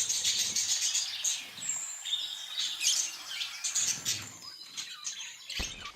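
Budgerigars chattering: a stream of quick, high chirps and warbles.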